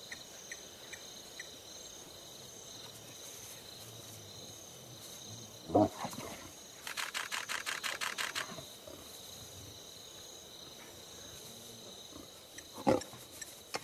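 Crickets trill steadily. A lion gives a short growl about six seconds in and another near the end. In between, a camera shutter fires a rapid burst of about eight clicks a second for a second and a half.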